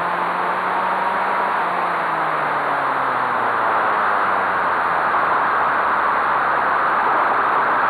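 Onboard sound of a large-scale RC car driving on asphalt: a loud, steady rush of wind and tyre noise, with a faint drivetrain whine that falls in pitch over the first few seconds and fades out.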